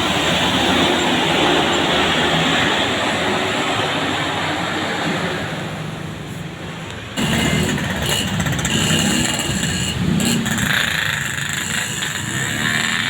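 A large bus passing close by: engine and tyre noise that swells and then fades. About seven seconds in, the sound cuts abruptly to another loud passing vehicle.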